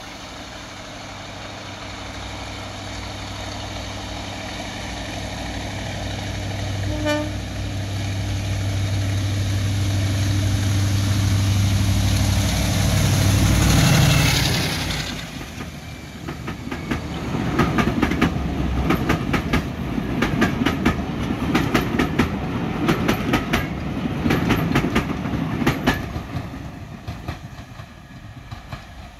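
A diesel locomotive approaching and passing with its engine running, growing louder to a peak about halfway through, with a short horn toot about seven seconds in. After it passes, the coaches' wheels clatter rhythmically over the rail joints and fade toward the end.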